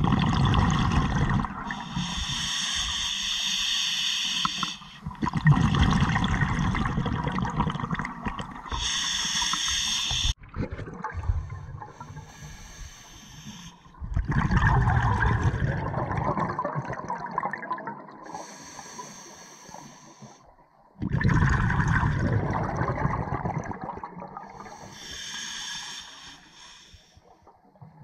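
Scuba diver breathing through a regulator underwater: bubbly exhalations alternate with a hissing inhale, cycling several times.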